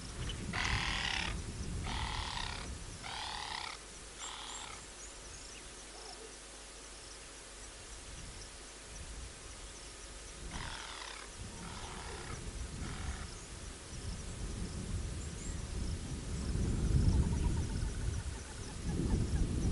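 A wild animal calls in two series of four short, harsh calls, the second series fainter and trailing off. A low rumble runs underneath and swells to its loudest near the end.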